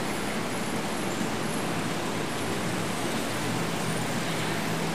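Steady road traffic noise of a busy city street: a continuous rush of passing cars with a low engine hum beneath it.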